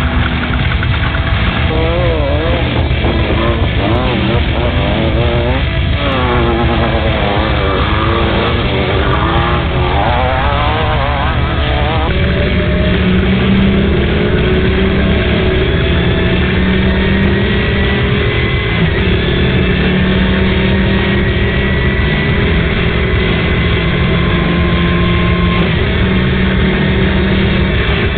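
Off-road race vehicle engine running hard over constant road and wind noise. Its pitch wavers rapidly up and down for the first dozen seconds, then holds steadier with a slow rise.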